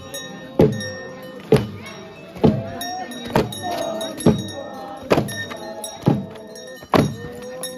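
Festival dance music: a drum beating a steady slow beat, a little faster than one stroke a second, with voices calling or chanting over it and a light metallic jingling.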